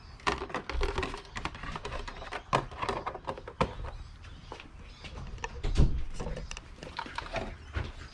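Irregular clicks, taps and knocks of plastic parts being handled on an RC monster truck, with a heavier thump about six seconds in.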